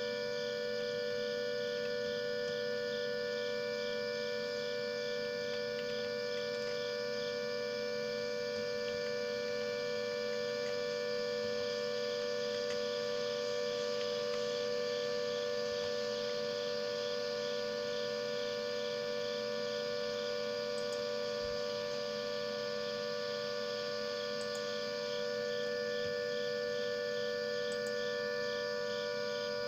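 Klaxon CS8 siren sounding a steady tone that holds its pitch without rising or falling: the continuous all-clear signal of a siren test.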